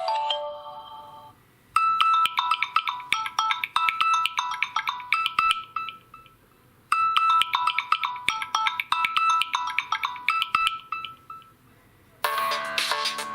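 Samsung Galaxy M01 stock ringtone: a quick melody of short, bright pitched notes, played twice with about a second's pause between. At the start the previous ringtone's last notes fade out, and near the end a different, fuller ringtone begins.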